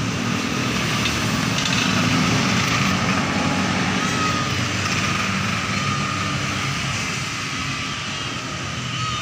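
A running engine's steady noise, the loudest sound throughout, with a calico cat meowing faintly over it.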